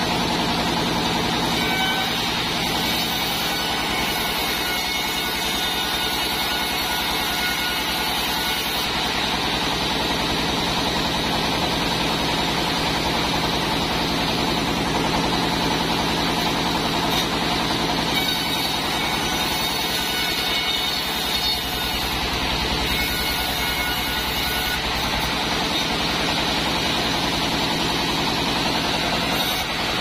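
Large 36-inch sawmill band saw running with a steady mechanical drone as it rips mindi wood into boards.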